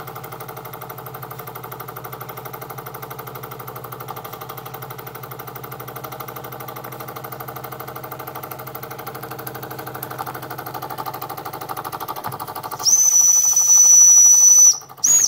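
Jensen Model 70 toy live-steam engine running fast with a rapid, even exhaust beat. About thirteen seconds in, its steam whistle is blown: one loud, steady, high-pitched note of about two seconds, then a short toot at the end.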